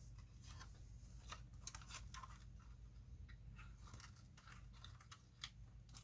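Faint scattered rustles and light clicks of a fabric canopy being handled and fitted onto a plastic RC truck body.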